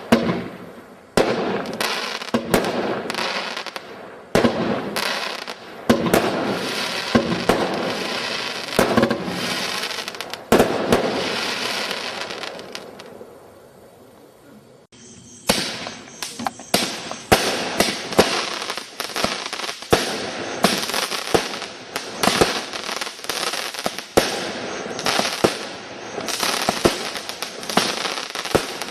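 Consumer fireworks firing in rapid volleys of sharp bangs with crackling hiss between them. One volley dies away about halfway through, then a new one starts abruptly with faster, denser bangs.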